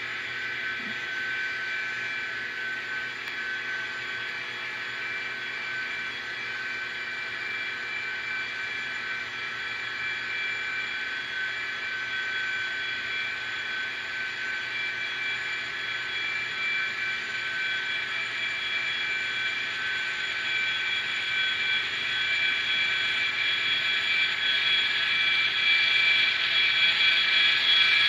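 Diesel engine sound played by the ESU sound decoders in N scale Atlas GP39-2 and Intermountain SD40-2 model locomotives: a steady, high-pitched engine drone that grows louder as the locomotives come closer.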